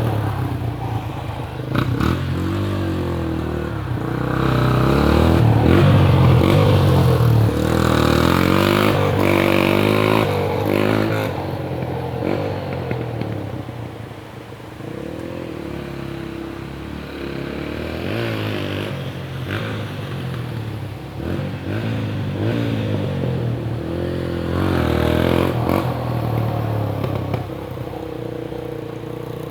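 Dirt bike engine revving up and down while being ridden through mud. It is loudest for several seconds near the start, eases off midway, picks up again with a few more revs, and settles to a steadier, lower drone near the end.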